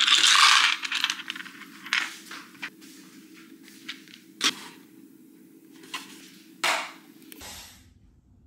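A cardboard box being unpacked by hand. Its flaps rustle loudly in the first second, then come several short knocks and scrapes as containers and cardboard are handled.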